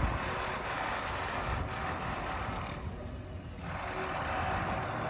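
Steady road traffic noise, with vehicles passing around a busy road works site.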